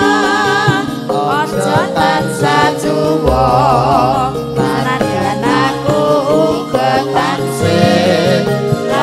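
Live langgam campursari music: singing with a wavering vibrato over keyboard accompaniment and a steady bass line.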